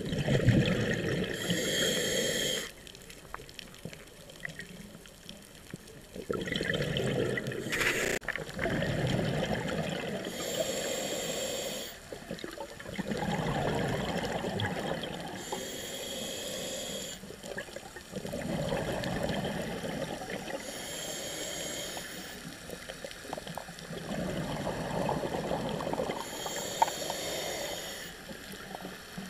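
Scuba diver breathing through a regulator underwater: a hiss on each inhale, then a burble of exhaled bubbles, repeating about every five to six seconds.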